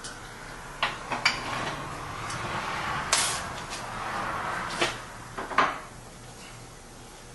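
Sharp knocks and clacks of hard objects being handled, about five of them, over a rushing noise in the middle stretch that fades out after about five and a half seconds.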